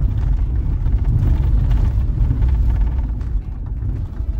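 Low, steady rumble of a vehicle driving slowly along a rough dirt road, heard from inside it: tyre and suspension rumble over the uneven track.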